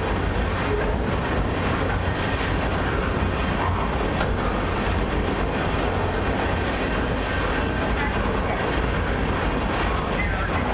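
Loaded freight flatcars rolling past at a steady speed: the continuous noise of steel wheels on rail, with no locomotive in it.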